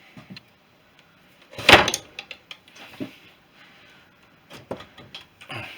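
Metal tool clanks and clicks of spanner work on the crankcase bolts of a BSA B31 engine, with one loud knock about a second and a half in and several lighter clicks after it.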